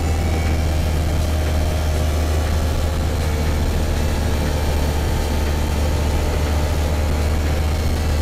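Hi-MAX ultralight aircraft's engine running steadily in flight, a constant low drone heard from inside the cockpit.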